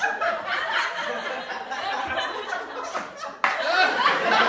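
Indistinct talking and laughing voices. The sound jumps abruptly louder about three and a half seconds in.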